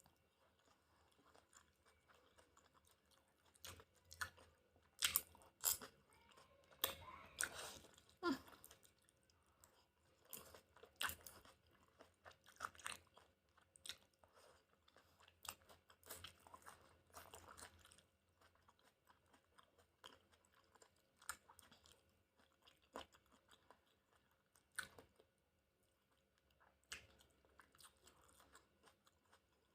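Close-miked eating of chicken udon: chewing, with many short sharp crunchy clicks, busiest in the first half and sparser later.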